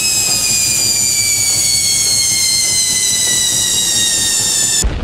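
Indesit front-loading washing machine running with a loud, high-pitched whine over a rumble, the whine slowly falling in pitch. It cuts off suddenly near the end as a low boom starts.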